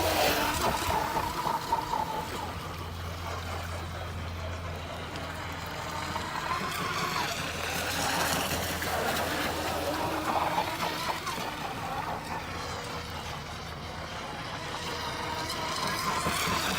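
Joysway US 1 V3 RC catamaran's brushless motor whining as the boat runs on the water, its pitch rising and falling with the throttle.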